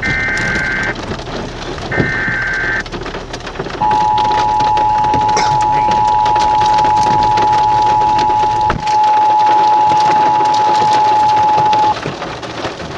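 Emergency Alert System activation over a car radio. Two short data bursts of paired high tones come in the first three seconds, then the two-tone attention signal sounds as a steady beep for about eight seconds, with a brief break near the middle. It heralds a National Weather Service tornado warning. Road and rain noise sit beneath.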